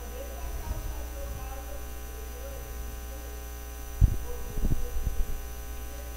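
Steady mains hum from the sound system, with a woman's voice faintly reading a Bible verse aloud off-microphone. About four seconds in, a loud low bump and a few smaller knocks on the handheld microphone.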